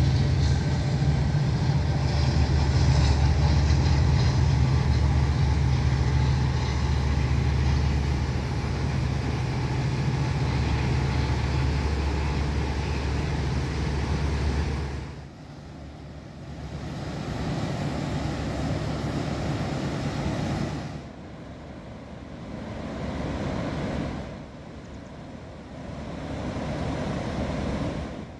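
Loud, steady low rumble of traffic crossing the bridges, stopping abruptly about halfway. After it, a softer rushing noise swells and fades three times.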